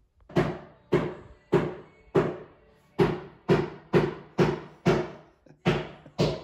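Hammer driving nails into a floor: eleven sharp blows, about two a second, with a short pause after the fourth.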